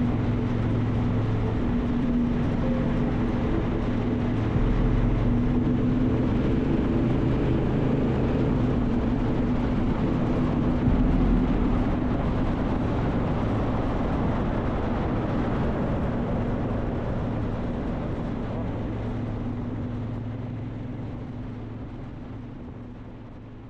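A vehicle engine running steadily under road and wind noise, fading out over the last few seconds.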